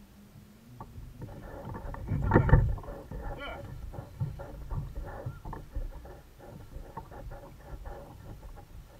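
Irregular small knocks and taps on a plastic kayak's hull and gear while a fishing rod is handled aboard, with a louder bump about two and a half seconds in.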